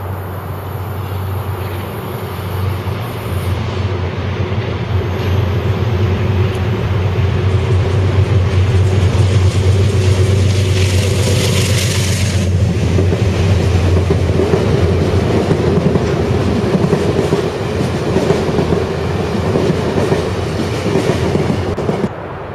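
Amtrak Pacific Surfliner passenger train passing, with a steady low drone and the clatter of its wheels on the rails growing louder as the cars go by. There is a short burst of hiss about ten seconds in.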